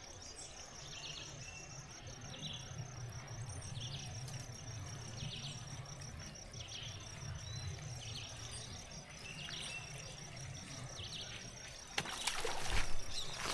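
Pond-side ambience: an insect trilling in steady rapid pulses and a bird chirping over and over, about once a second. Near the end a loud splashing rush of water lasts about a second, as a fish takes the lure at the surface.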